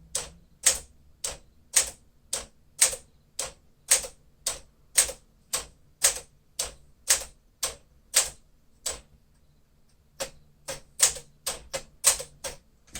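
A 1956 Smith-Corona Clipper manual typewriter being typed key by key along the number row, each typebar striking with a sharp clack at about two strokes a second. About nine seconds in there is a pause of about a second, then a quicker run of strokes near the end.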